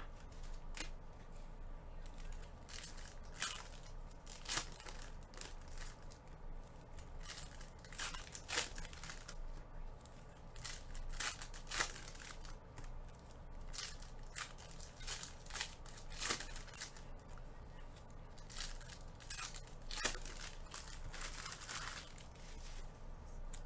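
Trading cards being handled and flipped through by gloved hands, with foil pack wrappers crinkling: a string of short sharp clicks and rustles, with a longer crinkling rustle near the end.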